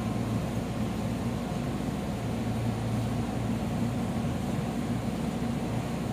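Steady low hum and hiss inside a standing electric commuter train carriage, from the train's air conditioning and onboard equipment running while it waits to depart.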